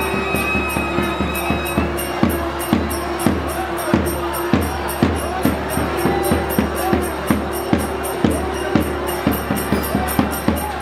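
South Indian temple festival music: rapid, even drum strokes, about three to four a second, with small cymbals ticking in time over a steady held pipe tone.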